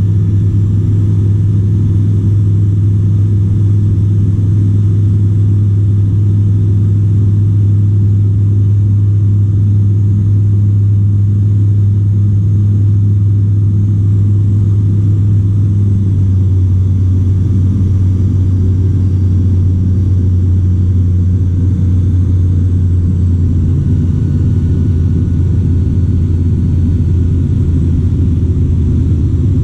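The Dynamic WT9's piston engine and propeller droning steadily in flight, heard inside the cockpit. The pitch settles slightly lower about halfway through.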